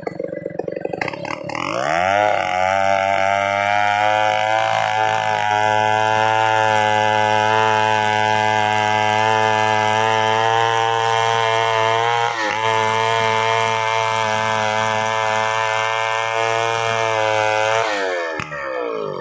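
Chainsaw engine revving up from idle to full throttle about two seconds in, holding a steady high pitch for about sixteen seconds with one brief dip, then dropping back to idle near the end.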